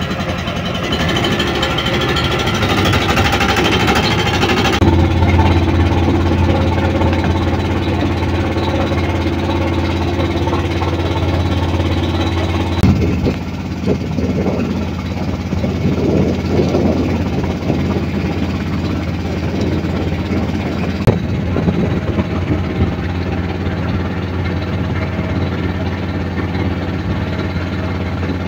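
Small boat's engine running steadily, a low drone with a constant pitch. The sound shifts abruptly a few times, about five seconds in and again near the middle.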